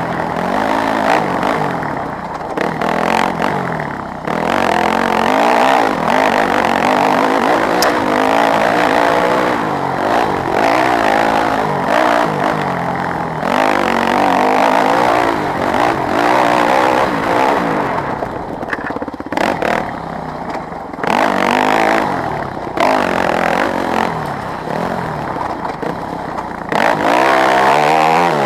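Yamaha WR250F's 250 cc single-cylinder four-stroke engine being ridden hard off-road, its pitch rising and falling over and over as it revs up through the gears and drops back, with a few brief dips off the throttle.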